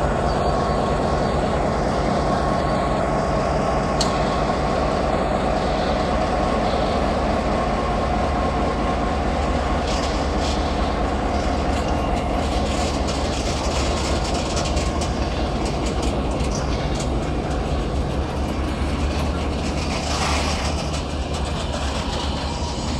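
NOHAB diesel locomotive's EMD two-stroke engine running steadily as the locomotive pulls slowly past. From about halfway on, hopper wagons roll by, with wheels clicking over the rail joints.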